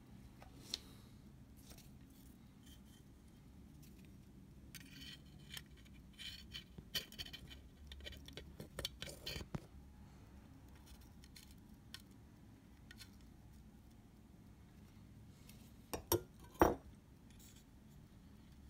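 Small metal tools and parts handled at a workbench: light clinks and scrapes come in a cluster around the middle, then two sharp clicks near the end, the second the loudest.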